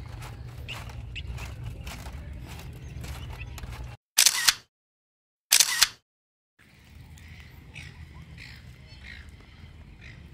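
Two loud camera-shutter clicks about a second and a half apart, set in dead silence like an added sound effect. Before them is outdoor ambience with wind rumble on the microphone and footsteps on a footbridge deck. After them the outdoor ambience returns with faint brief chirps.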